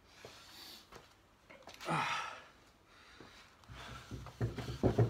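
Hand buffing pad rubbing back and forth over a freshly waxed wooden tabletop, in quick rhythmic strokes that start a little before four seconds in. Earlier there is one falling swish about two seconds in.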